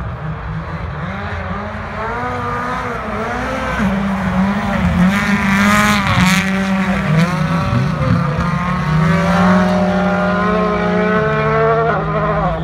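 Rally car engines revving hard as the cars race past, the pitch climbing and dropping again and again with throttle and gear changes.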